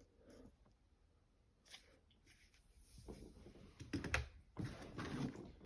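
Hand tools being handled: scattered light clicks and knocks with some rustling, the loudest knock about four seconds in.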